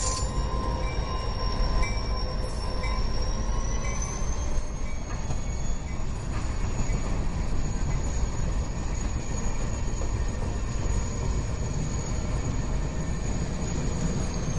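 Freight train cars rolling past close by: a steady heavy rumble with a high-pitched wheel squeal held throughout, its pitch rising slightly about four seconds in and dipping near the end.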